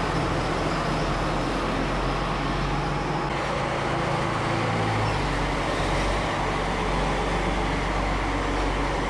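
John Deere farm tractor's diesel engine running steadily.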